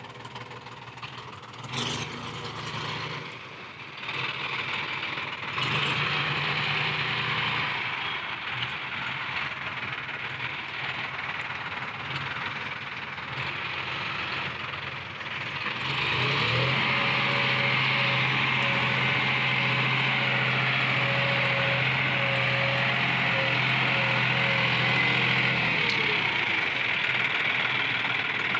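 John Deere 5005 tractor's diesel engine running as it works a front loader through soil. About 16 seconds in it revs up, holds steady at the higher speed for about ten seconds, then drops back.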